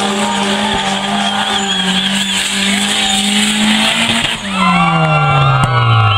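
Drift car's engine held at high, steady revs while the tyres squeal and screech in a slide. A little over four seconds in, the revs drop and the engine note falls away steadily.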